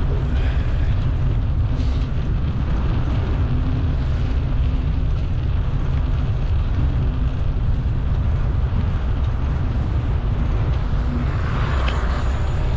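Steady low rumble of wind buffeting the microphone while riding a bicycle.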